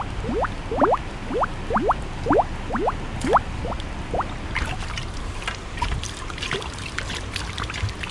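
An old glass bottle held under river water, glugging as air bubbles out of its neck: a quick run of short rising gulps, two or three a second. After about four seconds the gulps stop, giving way to splashing and sloshing water as the bottle is rinsed.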